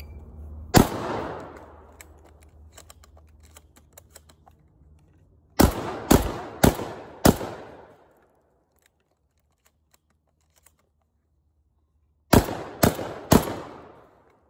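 Beretta 1301 Comp Pro 12-gauge semi-automatic shotgun firing eight shots: one about a second in, a quick string of four about half a second apart a few seconds later, and three more about half a second apart near the end. Faint clicks fall between the first shot and the string of four.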